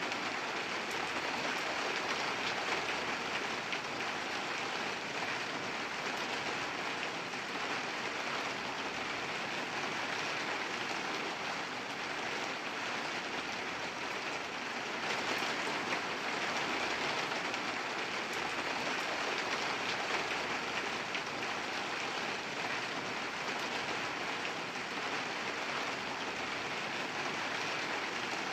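Steady rain falling on a surface, an even hiss with faint drop ticks throughout.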